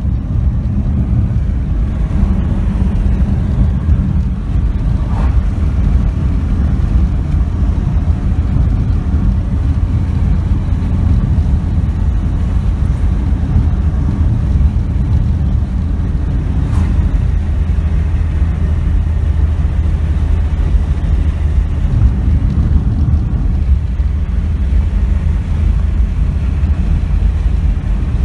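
Steady low rumble of a car driving on a paved road, engine and tyre noise heard from inside the cabin.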